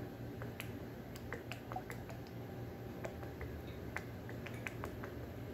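Scattered light clicks and ticks as a plastic hot-sauce squeeze bottle is handled and squeezed over a plate, over a low steady hum.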